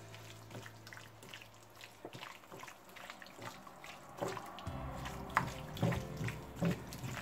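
Wet squelching of raw chicken pieces in marinade being squeezed and turned by a gloved hand in a glass bowl: an irregular run of short squishes and slaps, louder and more frequent in the second half.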